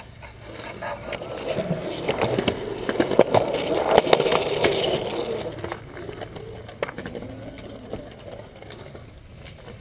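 Skateboard wheels rolling over smooth concrete, growing louder, with several sharp clacks of the board between about three and five seconds in. The rolling then eases off to a quieter rumble, with one more clack near seven seconds.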